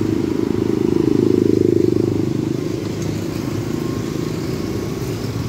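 A motorcycle engine running steadily with a fast, even pulse, getting louder about one to two seconds in and then easing back.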